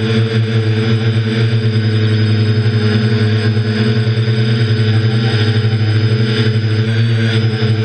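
Quadcopter's electric motors and propellers humming steadily at a hover, picked up close by the camera mounted on the craft: a steady low buzz with a thin high whine above it.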